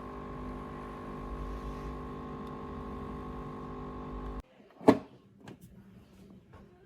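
An espresso machine runs with a steady electric hum that cuts off abruptly about four seconds in. Half a second later comes a single sharp knock, the loudest sound, followed by a few faint clicks.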